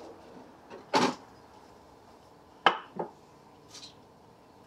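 Old wooden hand planes knocking against the cabinet and a wooden workbench as they are taken out and set down: a few sharp knocks, two of them in quick succession near the middle.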